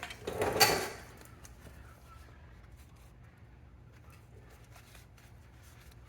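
A plastic part being pulled free of its retaining clip inside a car door: one short, loud scraping rasp about half a second in, then faint small clicks of plastic being handled.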